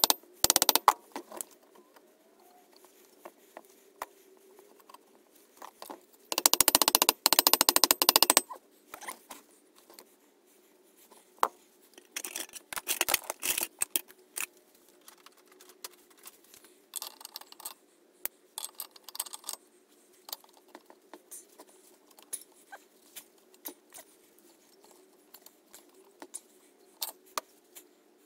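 Rubber mallet tapping the alloy cylinder barrel of a BSA Fury twin down over its locator dowels onto the crankcase, in a quick run of taps at the start and another about seven seconds in. Between the runs come scattered clicks and clinks of parts and tools being handled on the bench.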